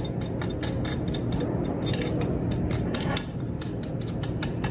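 Fork tines pressing and scraping over crispy chicken skin, pan-fried without oil, making a run of sharp crackling clicks several times a second.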